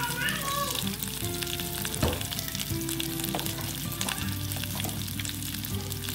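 Pork trotter pieces sizzling skin-side down in oil and caramelized rock sugar over low heat, a steady hiss full of small crackling pops, with one sharper pop about two seconds in.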